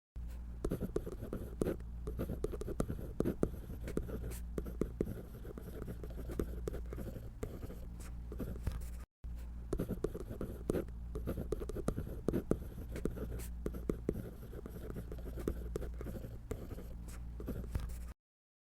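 Close-up scratching of a drawing tool on paper: a continuous run of short, irregular strokes over a steady low hum. The sound cuts out for an instant about halfway through.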